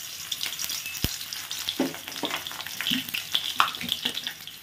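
Chopped onion sizzling and crackling in hot mustard oil in a kadai, frying with many small spits.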